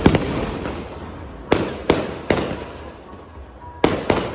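Aerial fireworks shells bursting overhead: a string of about seven sharp bangs at uneven intervals, each trailing off in an echoing rumble.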